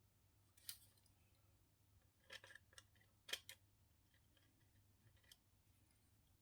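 Near silence broken by a handful of faint, short metallic clicks and snips from small hand tools at a soldering bench, scattered unevenly, a cluster of them around the middle.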